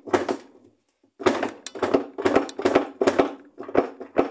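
Agitator of an Electrolux LTE 12 top-load washing machine being yanked and wiggled on its shaft: a run of knocks and rattles, about three or four a second, with a short pause about a second in. The agitator is stuck and is not coming off.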